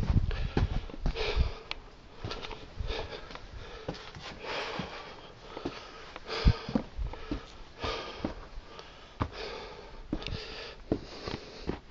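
A man breathing heavily at about one breath a second, close to the microphone. Scattered short knocks and scuffs of shoes and hands on rock mark a scramble into a small cave.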